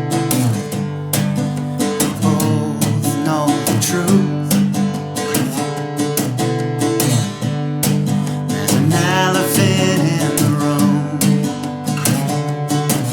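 Acoustic guitar strummed in a steady rhythm, with a voice singing a wavering melody over it in places.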